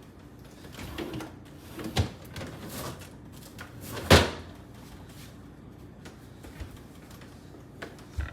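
A door or cupboard being handled: a few knocks and clunks with rustling between them. The loudest knock comes about four seconds in.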